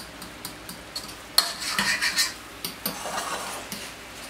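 Metal spoon scraping and clinking against a stainless steel bowl as sweet potato mash is stirred, with a sharp clink about a second and a half in and a few more scrapes near the middle.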